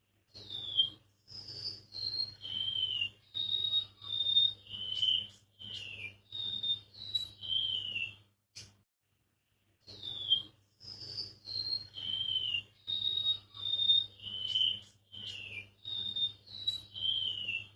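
Golden-bellied gerygone (remetuk laut) singing: a string of thin, high whistled notes, many sliding downward, in a phrase of about eight seconds. The phrase plays twice, with a short pause between, over a faint low hum.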